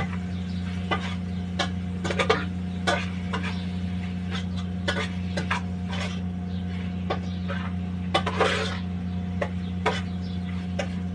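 A utensil stirring chicken adobo and gizzards in a cooking pot, making irregular clinks and scrapes against the pot over a steady low hum.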